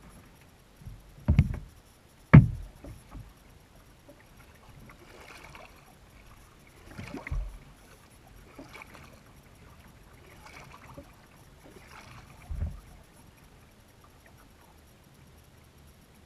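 Kayak paddle strokes: the blades swish through the water every couple of seconds, with several low thumps on the plastic hull, the loudest about two seconds in.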